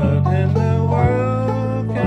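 Resonator banjo being picked in a country ballad, with a man singing the melody over sustained low backing notes that change chord about halfway through.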